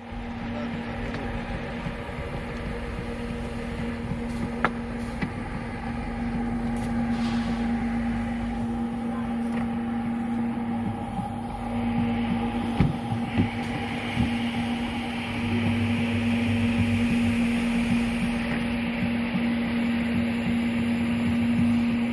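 Carpet cleaning machine's electric motor running with a steady hum, with a few sharp clicks along the way.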